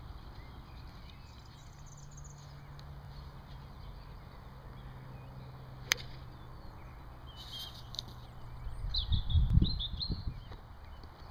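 A golf club strikes a teed ball once: a single sharp crack about six seconds in. Near the end comes a louder stretch of low rumbling, with short bird chirps over it.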